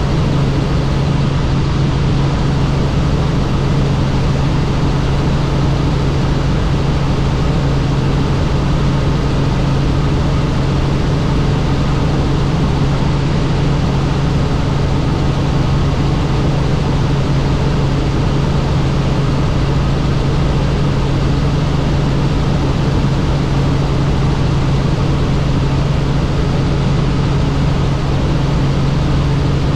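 Helicopter in flight: a steady, unchanging drone of rotor and engine with one strong low hum over a rushing noise.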